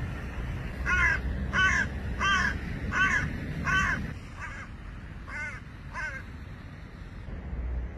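Hooded crow cawing: about eight caws, roughly one every 0.7 s, the first five loud and the last three fainter.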